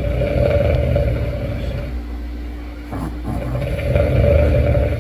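A dog snoring loudly: two long, low, rattling snores, the second starting about three seconds in.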